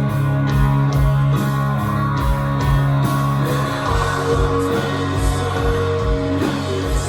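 A live rock band playing: guitar chords held over a steady kick drum and cymbals.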